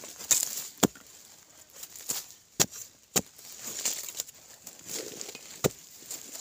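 A digging tool striking dry, hard-packed soil in several sharp chops a second or two apart, with loose clods and dirt spilling between the strokes.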